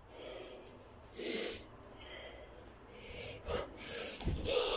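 Heavy, hissing breaths of a man exerted from doing burpees, followed near the end by two dull thuds as he drops into the burpee and his hands and feet hit the carpeted floor.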